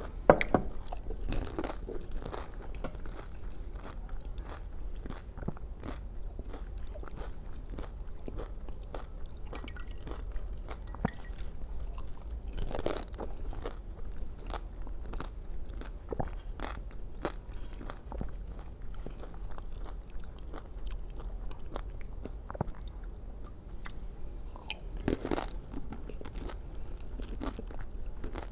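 Close-up chewing and crunching of pani puri: the crisp hollow puri shells crackle and break in irregular crunches as they are bitten and chewed, with heavier crunches about a second in, around the middle and near the end.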